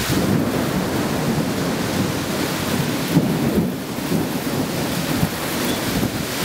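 Severe thunderstorm: heavy rain pouring down, with a steady low rumble under it.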